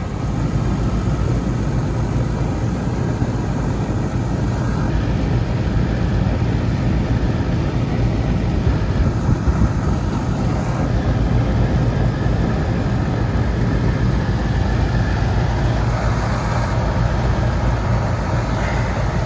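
Carrier rooftop air-conditioning unit running: a steady, loud low hum of its fans and compressor.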